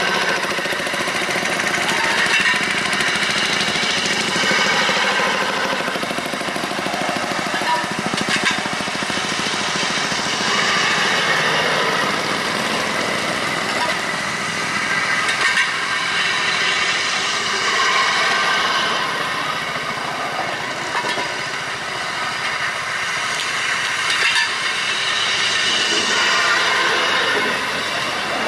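Small engines of motorized rail speeders (track motor cars) running as several pass one after another along the track, a steady mechanical chatter with a few sharp clicks.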